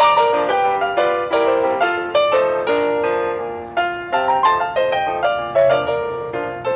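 Background piano music: a melody of struck notes, about three a second, each ringing and fading.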